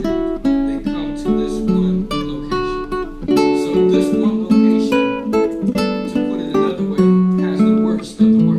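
Acoustic guitar music: plucked and strummed chords and notes played steadily.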